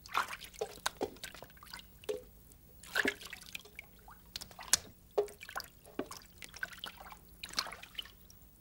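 Liquid in a darkroom developing tray dripping and splashing irregularly as a photographic print is handled with tongs, with about a dozen separate drips and small splashes, some with a short plink.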